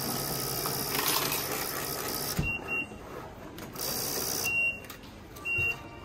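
Self-service payment machine at a restaurant checkout: its mechanism whirs with a steady high hiss for about two seconds, stops, then runs again briefly. Several short high electronic beeps sound in between.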